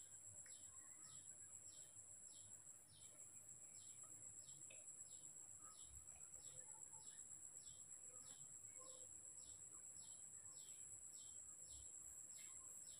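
Near silence with faint background chirping, an even chirp repeated about two to three times a second over a steady high-pitched whine.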